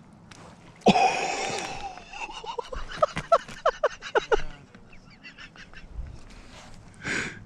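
A man's excited drawn-out shout about a second in, then a quick run of laughter for about two seconds, over a big bluegill just pulled up through the ice.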